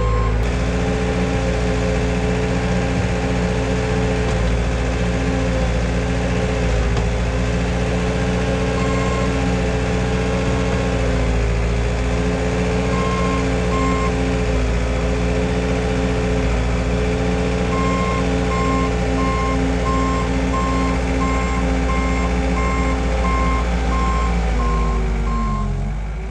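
Skid steer engine running steadily under load, its pitch dipping slightly now and then as the machine works a log on its forks. A reversing alarm beeps briefly twice, then repeats steadily through the second half.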